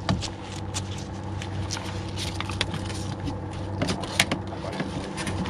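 Scattered small clicks and knocks of fishing tackle and bait being handled in a small boat, with one sharper click about four seconds in, over a steady low hum.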